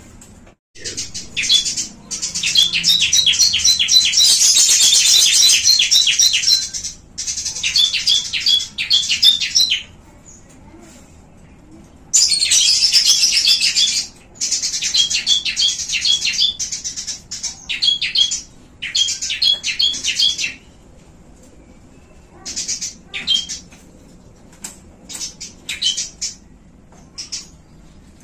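Small caged birds chattering and twittering, high-pitched, with fast runs of repeated notes. Two long bursts of several seconds each are followed by shorter separate calls near the end.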